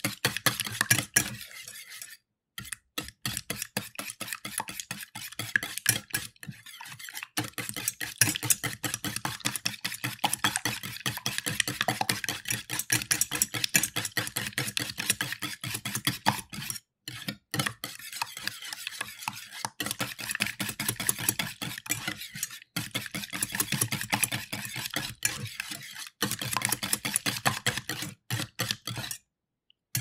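Wire whisk beating two raw eggs in an enamel metal bowl: rapid strokes of the wires clicking against the bowl, stopping briefly a few times.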